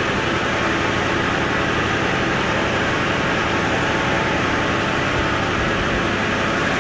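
Automatic rice vermicelli (bihun) making machine running steadily, a continuous even machine noise.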